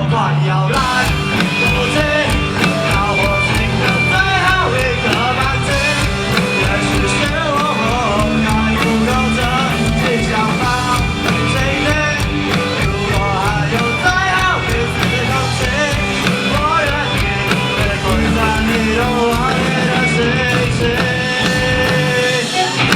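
A rock song playing, with a steady beat, a low sustained bass and a wavering lead melody over it.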